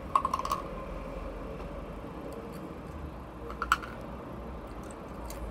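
Ice cubes crunched between the teeth: a quick run of crisp crunches just after the start and another short crunch about three and a half seconds in.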